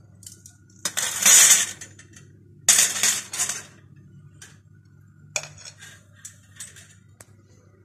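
Long flat metal kebab skewers clattering and scraping against one another as they are handled, in two loud bursts of about a second each, followed by a sharp clink and a few lighter clinks.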